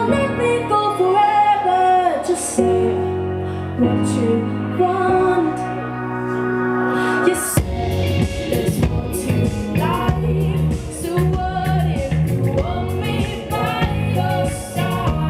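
Live rock-pop band with a female lead singer: she sings over held chords, and about halfway through the drum kit comes in with regular beats and cymbal hits as the full band plays.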